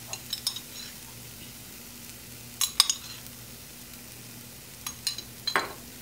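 Sesame oil poured into a stainless steel pan of frying masala paste, added because the spice powder is starting to stick, with a faint sizzle. A few sharp clinks come near the start, in the middle (the loudest) and near the end, over a steady low hum.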